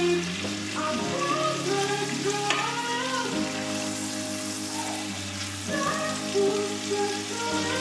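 Bavette steak frying in butter and thyme in a hot pan, a steady sizzle, under background music with held chords.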